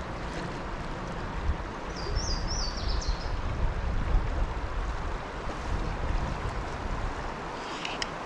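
Steady rush of creek water running over a riffle, with a low rumble for a few seconds in the middle. A bird gives a short high call of three or four quick notes about two seconds in.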